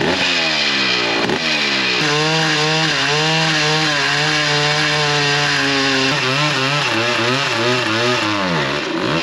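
Vintage motorcycle engine revved hard for a burnout, the rear tyre spinning in place. The revs swing up and down at first, hold high and steady for several seconds, then waver and drop away near the end.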